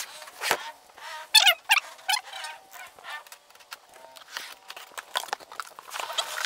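Cardboard shipping box being handled and opened: scattered scrapes, knocks and rustles of the flaps and packing, with a few short squeaky rubs about a second and a half in.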